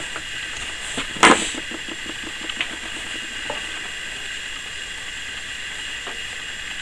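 Copper cable being pulled through a homemade wire stripper made from a pipe cutter: a sharp scrape a little over a second in, then a quick run of light ticks that fade out, over a steady hiss.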